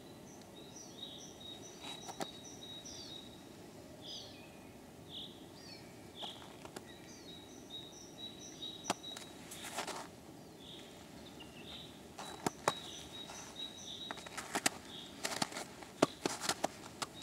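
Small songbirds calling, short high notes repeated again and again, over faint outdoor background noise. Footsteps crunching on old granular snow join in, becoming more frequent in the last few seconds.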